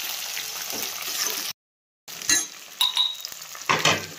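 Sliced elephant apple sizzling in hot oil in an aluminium kadai, stirred with a steel spatula that scrapes and clinks against the pan. The sound cuts out completely for about half a second midway; after it the sizzle is fainter, with a few sharp clinks, one ringing briefly, and a louder scrape near the end.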